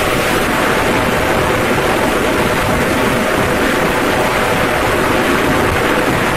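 Loud, steady rush of wind buffeting the phone's microphone on a moving motorcycle, with the bike's engine and road noise underneath.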